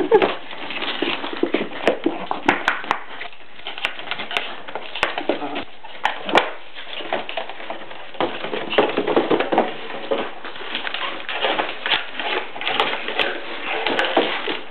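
Pomeranian puppies scuffling with a cardboard drinks box on a tile floor: the box scraping and knocking against the tiles with a run of sharp clicks, claws tapping, and some puppy whimpering.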